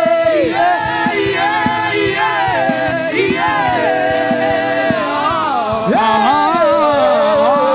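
Gospel worship singing by a group of voices over music, with long, drawn-out sung notes that glide between pitches.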